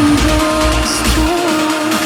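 Uplifting trance music: a held synth lead melody, with the fast rolling bass dropping out about half a second in for a short break.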